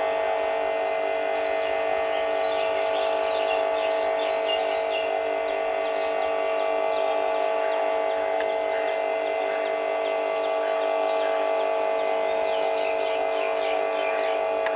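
A steady drone of several held tones, its level and pitch unchanging throughout, with short bird chirps over it from about two seconds in.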